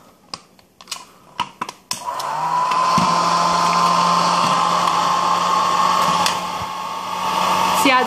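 Small hair dryer switched on about two seconds in and running steadily, a motor whine and low hum over rushing air, after a few light handling clicks.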